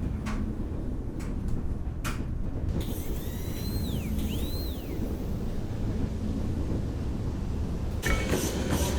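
Steady low rumble of a moving train, with a few sharp clicks in the first two seconds and two short arching whistle-like tones around the middle. Near the end a rhythmic clacking of wheels on rail joints starts.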